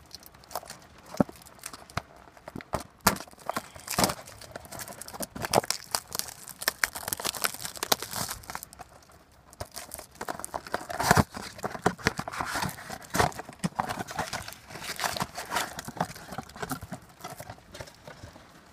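Plastic wrapping on a trading-card blaster box crinkling and tearing as it is opened by hand, in irregular bursts with sharp clicks of handling.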